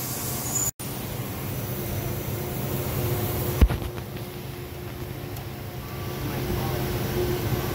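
EMAG VL-3 inverted CNC lathe running with a steady low hum. The sound cuts out for an instant a little under a second in, and there is one sharp click a little over three and a half seconds in, after which the high hiss falls away.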